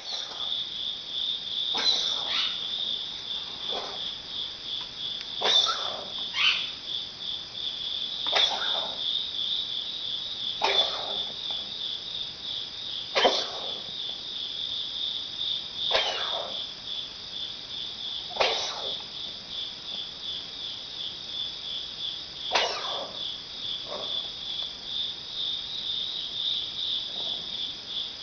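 Cat coughing: about a dozen short hacks, one every two to three seconds, over steady, high-pitched, pulsing insect chirping.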